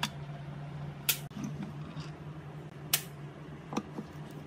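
Four sharp metallic clicks and taps as a screwdriver is fitted to and works the screws of the control plate on a Sony G3 speaker cabinet, the second and third the loudest with a brief ring. A steady low hum runs underneath.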